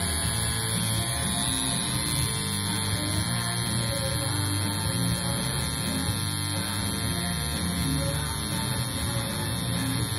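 Coil tattoo machine buzzing steadily as it runs on skin, with music playing behind it.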